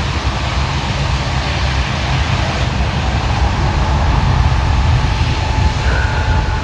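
Airliner's engines at takeoff power on a rain-soaked runway: a loud steady roar with a deep rumble and a rushing hiss, with a faint thin whine coming in during the second half.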